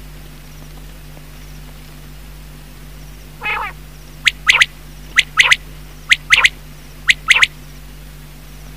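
Male common quail calling: a soft, low growling note a little past three seconds in, then the loud three-note song, one note followed by two quick ones, given four times about once a second.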